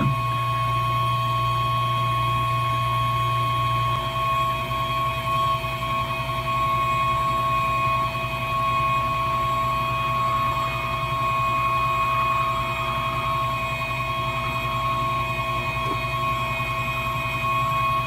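Hot air rework station blowing steadily, a constant fan whir and air hiss with a steady whine. It is heating the PLL configuration resistors on the CPU card to reflow their solder so they can be moved with tweezers.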